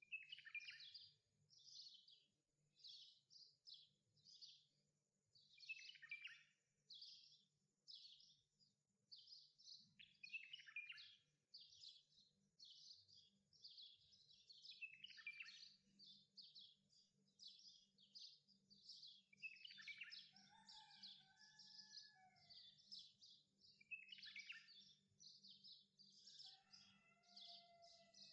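Faint birdsong: high chirping phrases repeated over and over, one or two a second, with a couple of lower whistled notes in the second half.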